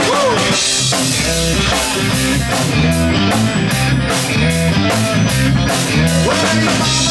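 Live rock band playing: electric guitars over a drum kit, with a steady beat.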